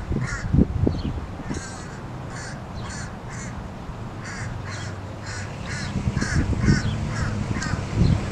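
Crows cawing over and over, about two short caws a second. From about halfway through, the 283 V8 of a 1963 Chevrolet Nova comes in low underneath and grows louder as the car drives closer.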